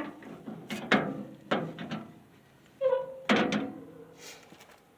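Metal wheelbarrow being handled and set down: three thunks with a brief metallic ring, about a second in, at a second and a half, and just past three seconds, with a short squeak just before the last.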